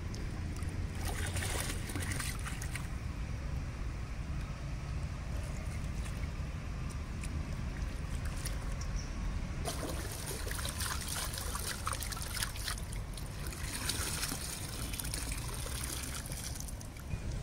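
River water splashing and sloshing as a steel bowl of fish roe is dipped and rinsed in the shallows, with water trickling and pouring off as the bowl is lifted. The splashing comes in two stretches, about a second in and from about ten seconds to near the end, over a steady low rumble.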